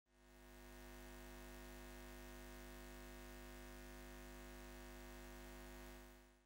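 Faint steady hum made of several held tones, fading in over the first second and fading out near the end.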